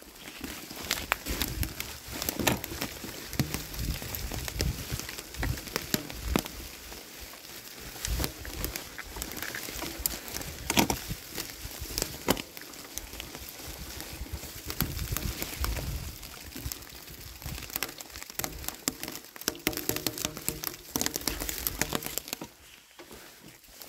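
Bicycle tyres rolling over dry fallen leaves, a continuous crackling and crunching with many sharp clicks and knocks as the bike jolts over the rough forest floor. It eases off a little near the end.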